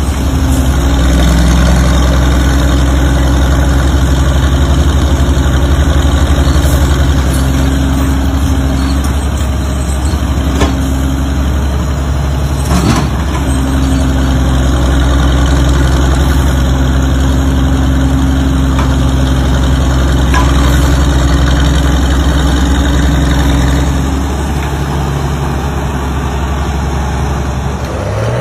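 The engine of an old Northwest cable-operated power shovel running steadily as the machine digs, with a couple of sharp metallic clanks about halfway through. The engine note eases off a little near the end.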